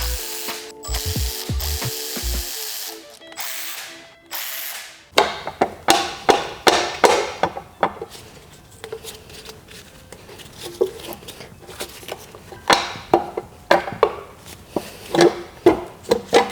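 Tool and metal-part sounds from a Volvo 2.5T five-cylinder engine being stripped: a few seconds of steady tool noise at the start, then a long run of sharp clicks and knocks as metal engine parts are handled and worked loose.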